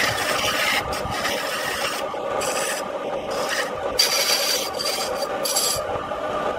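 Turning chisel cutting a spinning wooden spindle on a wood lathe: a rasping scrape as shavings peel off. It comes and goes several times as the tool eases off and bites back in, with a sharp peak about four seconds in.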